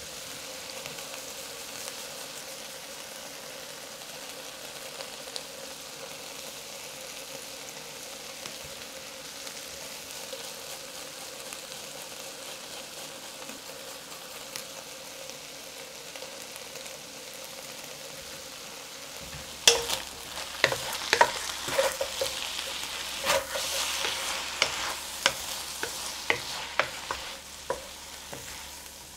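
Shredded pork and potato strips sizzling steadily in an oiled wok. About two-thirds of the way through, a wooden spatula starts stirring them, knocking and scraping against the wok many times while the sizzling gets louder.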